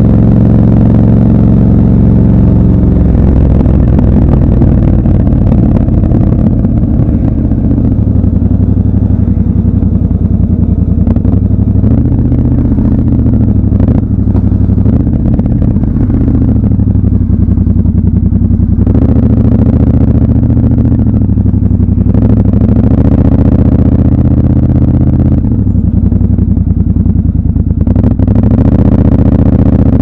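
Triumph Scrambler 1200 XC's 1200 cc parallel-twin engine running under way, its note rising and falling with the throttle, dipping briefly a few times in the second half.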